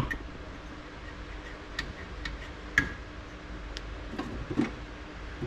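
A few scattered light clicks and taps of small parts being handled, over a faint steady hum.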